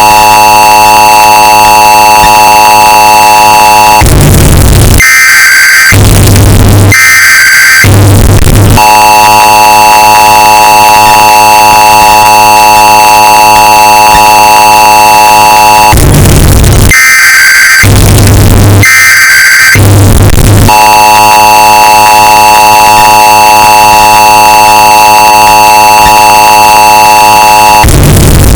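Emergency Alert System alert sound, bass boosted and distorted to clipping. A steady, harsh two-tone attention signal alternates with several seconds of screeching data bursts, and the cycle repeats about every 12 seconds.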